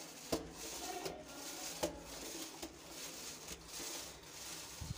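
Paint roller rolled back and forth over a wall, a repeated swishing, with a couple of sharp knocks.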